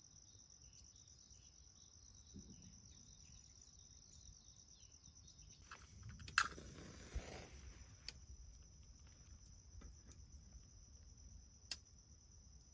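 Insects trilling steadily and high-pitched, with a few sharp clicks scattered through, the loudest about six seconds in.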